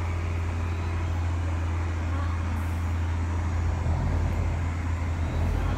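Low, steady engine drone from the boat hauling a train of sand barges along the river.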